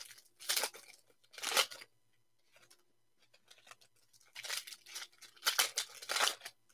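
Foil-wrapped Panini Mosaic basketball card packs being torn open and handled, crinkling in short bursts: two early on, about a second apart, then a quick run of them near the end.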